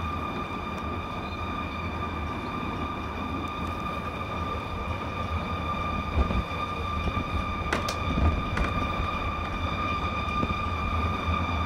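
An unexplained steady droning tone with a stack of even overtones, heard across the sky and described as an eerie, mad wailing sound, over a low rumble. A faint click about eight seconds in.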